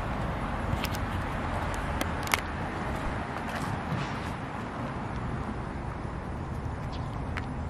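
Steady outdoor background noise, a low rumble with hiss, and a sharp click a little over two seconds in, with a few fainter clicks.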